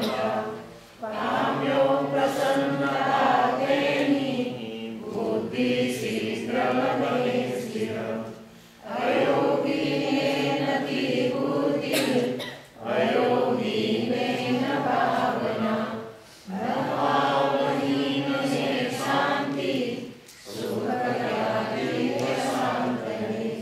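A group of voices chanting a prayer together in unison, in sung phrases of a few seconds each with short breaks between them.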